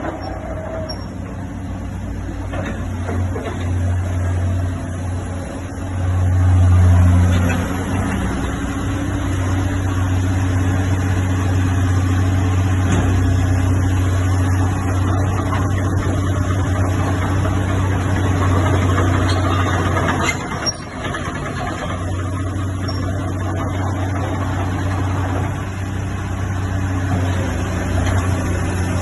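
Heavy diesel engine running steadily, rising in revs and loudness about six to seven seconds in, then settling back.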